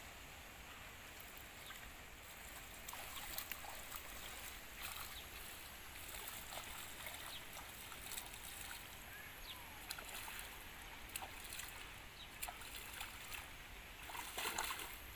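Faint, irregular small splashes and sloshing of shallow muddy pond water as hands work in it, setting an eel trap. A denser run of splashing near the end as feet wade through the water.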